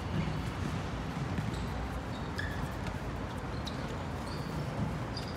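Ball being kicked and bouncing on a hard outdoor court during a small-sided football game, a few scattered knocks, with brief high squeaks over a steady low background hum.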